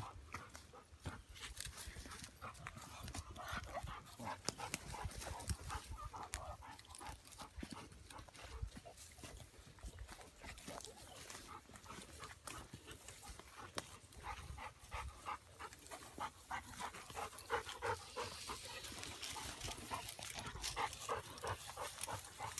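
A tracking dog panting as it works a scent trail on a long lead, with footsteps and brush crunching on dry pine needles throughout.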